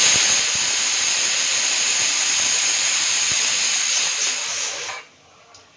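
Pressure cooker whistle releasing a steady jet of steam, a loud high hiss that stops abruptly about five seconds in: the cooker of dal has come up to pressure.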